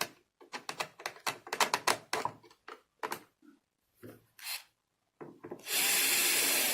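A run of small clicks and scrapes of hardware being handled, then, near the end, an electric screwdriver runs steadily for about two seconds, driving the last mounting screw of a smart door lock.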